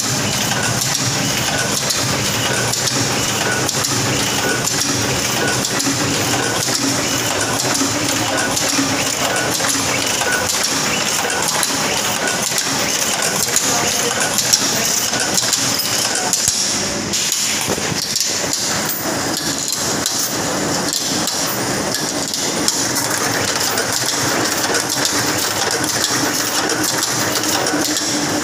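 Groz-Beckert automatic drawing-in machine running: a steady, dense clatter of rapid mechanical clicks and whirring.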